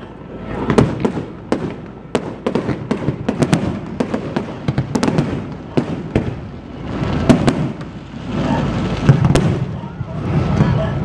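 Aerial fireworks shells bursting: a rapid run of sharp bangs and crackles, with longer rumbling swells in the second half.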